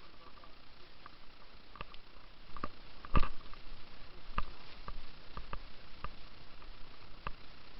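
Footsteps and handling knocks while walking with a hand-held camera over rough grass and rocks: irregular clicks and taps, with one louder knock about three seconds in.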